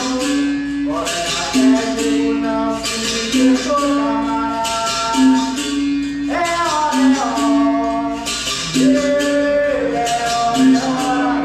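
Capoeira music: a man singing over the berimbau's repeating notes, with a regular shaken rattle keeping the pulse.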